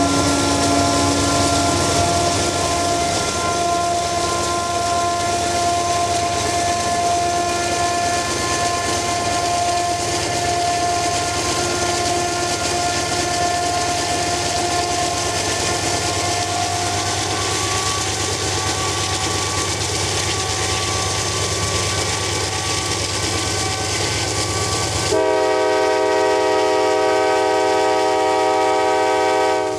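CSX diesel freight locomotive accelerating, heard from alongside: a steady engine and rail rumble carrying a held high tone through the first half. About 25 seconds in, a sustained horn chord of several steady tones comes in and holds to the end.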